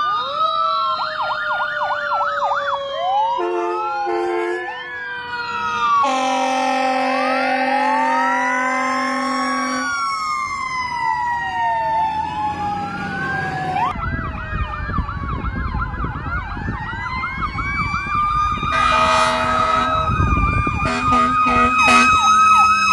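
Emergency vehicles running several sirens at once: a Federal Q mechanical siren in long slow glides, winding up and coasting down, over electronic sirens warbling fast on yelp and gliding on wail. Air horn blasts cut in, the longest about four seconds near the middle, with shorter blasts near the start and near the end.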